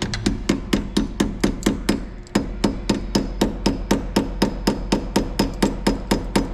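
A wrench on a 1/2-inch fastener, clicking evenly about four to five times a second as it runs the nut down on the battery tray hardware. It pauses briefly about two seconds in, then carries on.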